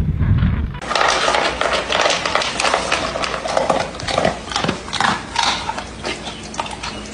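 A low rumble that stops short under a second in, then an animal breaking wind: a long, sputtering run of irregular pops that fades toward the end.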